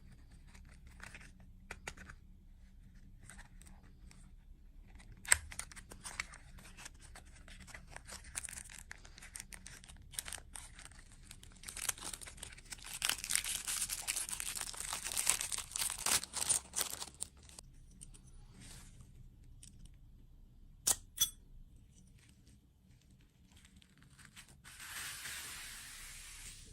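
Close-miked tearing and crinkling, broken by scattered clicks and taps. A dense stretch of rustling comes in the middle, a couple of sharp clicks follow a few seconds later, and a short hiss comes near the end.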